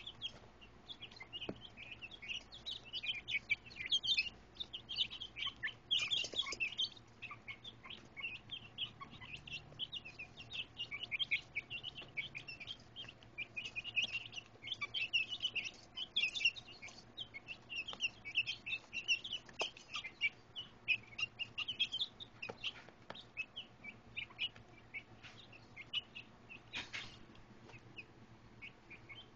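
A brood of young chicks peeping, with many short high peeps overlapping in a constant chatter that thins out over the last few seconds. There are a couple of brief rustles among them.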